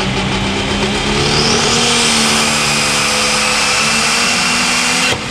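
Turbocharged diesel engine of a John Deere pulling tractor at full throttle under load, with a high turbo whine that climbs in pitch about a second in and then holds. The sound cuts off abruptly near the end.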